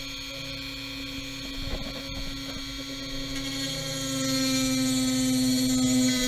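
Dremel rotary tool running at a steady high speed with a whine. It grows louder about four seconds in as it is worked against the metal collar of an LED headlight bulb, grinding it down.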